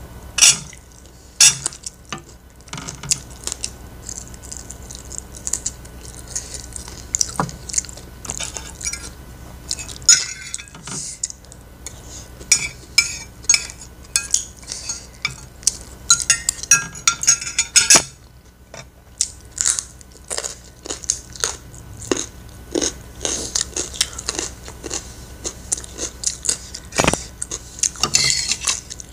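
Metal spoon and fork scraping and clinking against a plate in quick, irregular strokes as the last grains of fried rice are gathered up, with close-up chewing in between.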